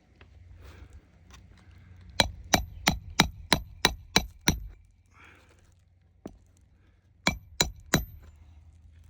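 Hammer striking nails into roof shingles: a quick run of about eight blows, three a second, then after a pause three more, each with a short metallic ring.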